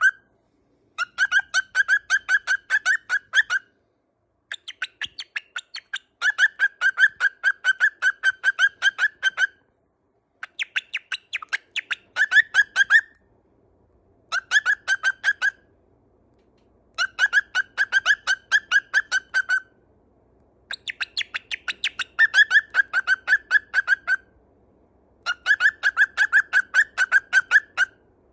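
Cockatiel calling in rapid bursts of short, sharp chirps, about seven notes a second, in bouts of a few seconds separated by brief pauses. It is excited and worked up by being filmed at close range.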